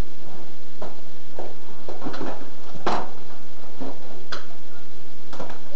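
Kitchen utensils and a plastic measuring cup handled on a countertop beside a glass mixing bowl: a string of short knocks and clatters, the loudest about three seconds in, over a faint steady hum.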